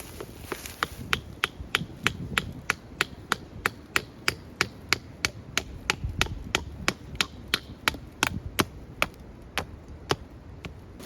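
A tool striking wood in a fast, steady rhythm of about three sharp blows a second, stopping near the end.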